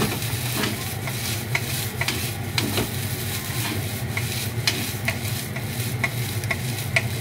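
Kimchi fried rice sizzling in a nonstick frying pan as a wooden spatula stirs and scrapes it, with repeated sharp taps of the spatula on the pan, one or two a second. The rice is tossed in the pan as it fries.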